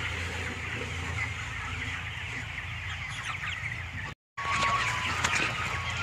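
A shed full of 27-day-old broiler chickens clucking and peeping continuously over a steady low hum. The sound cuts out for a moment about four seconds in.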